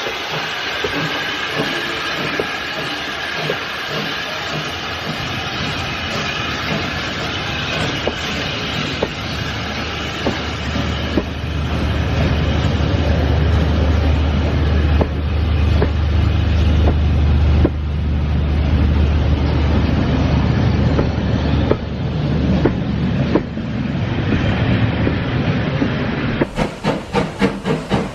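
A train running on rails, with steady rumble and hiss; the low rumble swells in the middle. Near the end it gives way to a quick, even run of beats.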